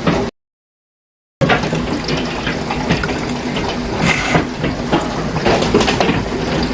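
Heavy thunderstorm rain, a dense steady splashing with many small sharp ticks of drops hitting surfaces. The sound drops out completely for about a second near the start.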